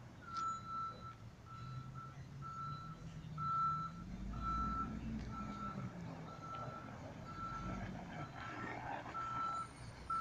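Reverse alarm of a Recology Heil Durapack rear-loader garbage truck beeping steadily a little faster than once a second as the truck backs up the alley. The truck's engine runs underneath and rises a few seconds in.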